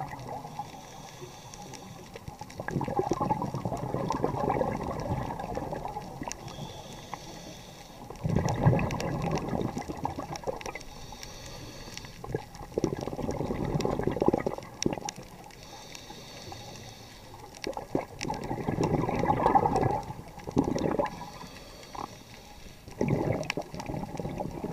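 Scuba diver breathing through a regulator underwater: each breath is a faint hissing inhale followed by a louder burst of exhaust bubbles. Five breaths, about one every five seconds.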